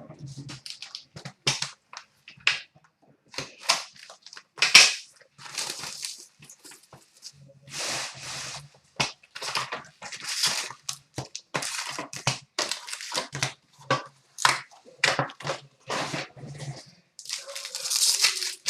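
Crinkling and tearing of trading-card packaging as a box of hockey cards is opened: a dense run of sharp crackles and rips, loudest about five seconds in and again near the end.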